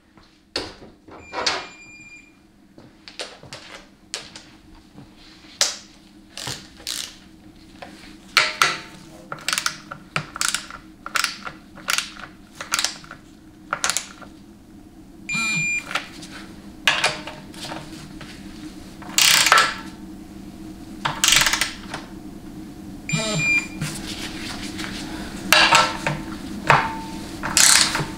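Hand ratchet clicking in short strokes as the oil pan bolts on a 700R4 automatic transmission are run down and tightened, with a few brief high tones and a low steady hum underneath.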